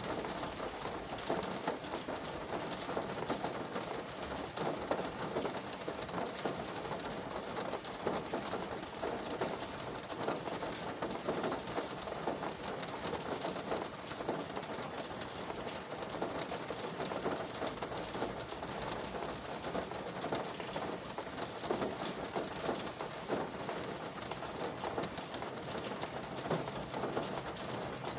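Rain drumming on a car's roof and windows, heard from inside the cabin: a dense, steady patter of countless small drop hits.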